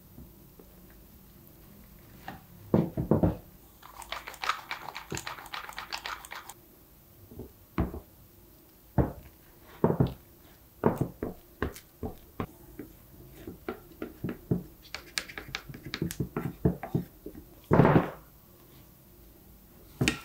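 A spatula working a thick cocoa and condensed-milk chocolate mass in a glass baking dish: irregular strokes and knocks against the glass, with a stretch of scraping a few seconds in. The loudest thumps come near the start and near the end.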